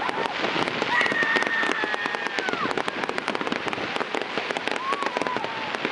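Fireworks display crackling with a dense run of sharp pops, with a few long whistling tones over it, the longest falling in pitch as it ends.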